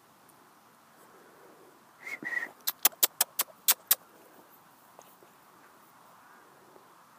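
A person whistles two short notes, followed at once by a quick run of about seven sharp clicks, about five a second.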